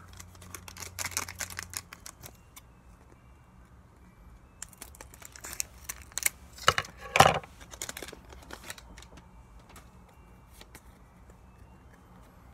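Foil Pokémon booster pack wrapper being torn open and crinkled, with the cards inside handled; the crinkling comes in spells and is loudest about six to seven seconds in, then dies down.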